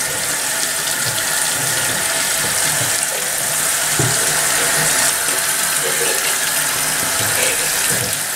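Water running steadily into a bathtub as a dog is rinsed and washed, an even rushing hiss with a few soft low bumps of handling.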